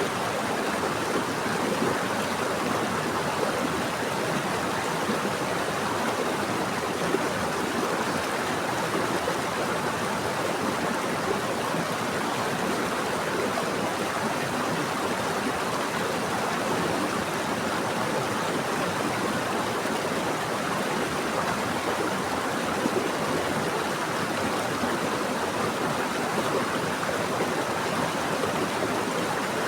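Running water of a stream flowing steadily: an even, unbroken rushing sound with no breaks or changes.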